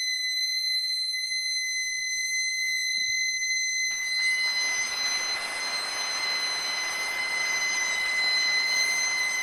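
Suona holding one long, high, unbroken note. About four seconds in, a dense hissing wash joins it.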